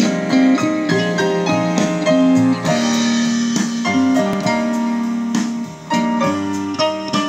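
Piano intro of a song, played back through a repaired Phass car audio power amplifier: sustained chords and melody notes changing about every half second.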